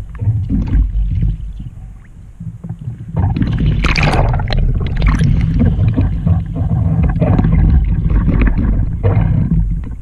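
Loud splashing and gurgling of lake water over the deck-mounted camera as a Trak folding kayak heels over in a roll and comes back up, from about three seconds in to near the end, over a low rumble of water on the microphone.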